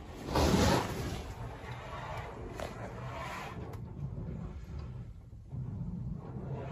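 Water splashing against a car windshield, heard from inside the car: one short, loud splash about half a second in, then a quiet low rumble.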